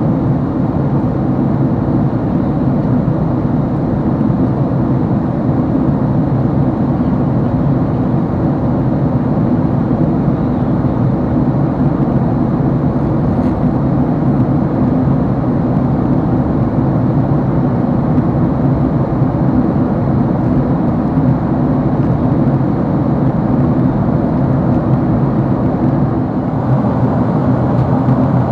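Steady cabin noise of a Boeing 767-300 airliner in flight: an even, loud rumble that holds level with no change.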